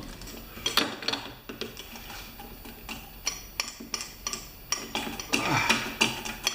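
Scattered small clicks and light clatter of hands handling plastic and metal parts and a small squirter around a snow thrower's carburetor intake, with a brief muffled vocal sound near the end.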